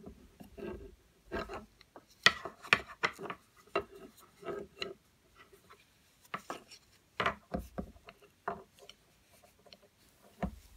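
Wooden knitting needles tapping and rubbing together as yarn is wrapped and drawn through while stitches are worked. It comes as irregular short clicks and scrapes.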